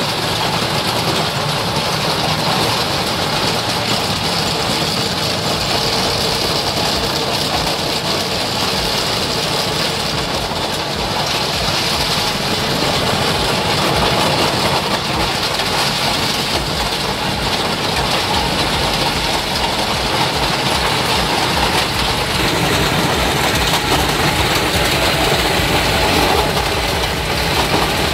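Kubota M7172 KVT tractor's diesel engine under load and a Valentini Apache 2000 forestry mulcher's rotor grinding and crushing stones in rocky soil. A loud, steady mechanical din that grows a little louder about halfway through.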